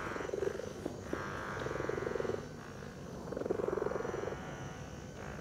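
Bob and Brad Q2 mini massage gun running at its strongest setting against the calf muscle: a rapid buzzing pulse that swells and eases in stretches of about a second.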